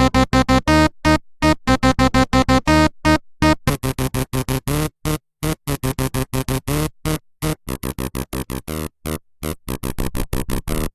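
Synthesizer playing a fast staccato run of short notes, about six a second, the pitch shifting from note to note; from about four seconds in the notes turn brighter and buzzier.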